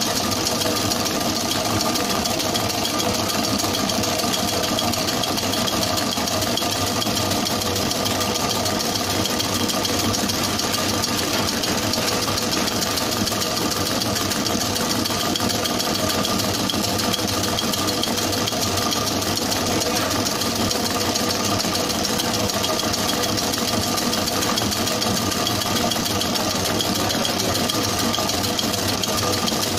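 Commercial planetary mixer running steadily, its beater churning sponge cake batter in a steel bowl.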